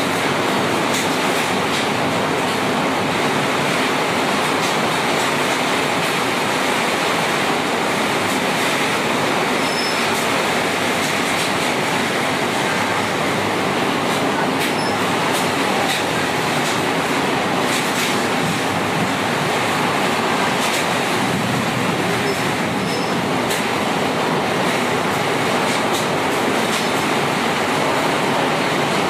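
Heavy rain pouring in strong wind: a steady, dense hiss with scattered sharp ticks of drops striking close by.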